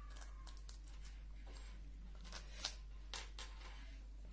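Faint, scattered clicks and taps of batteries being pressed into a plastic battery holder, over a low steady hum.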